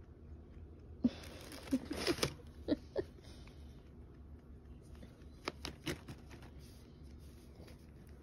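Plastic treat bag rustling as it is handled and set down in a cardboard box, in short bursts with a few light clicks about a second in, and again briefly around six seconds.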